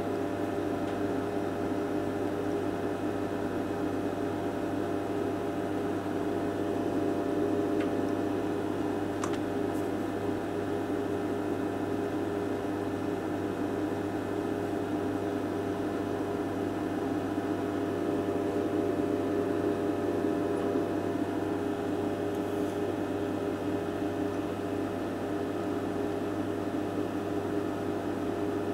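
Steady electrical hum with a faint ticking or two, from running bench electronic test equipment such as a 1970s Systron Donner Nixie-tube frequency counter.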